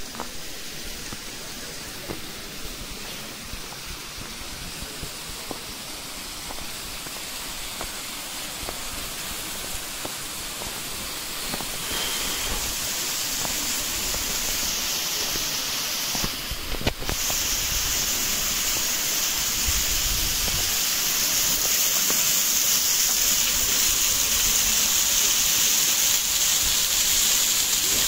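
Steady rush of mountain water from a stream and small waterfall, an even hiss that gets louder about halfway through and again later on.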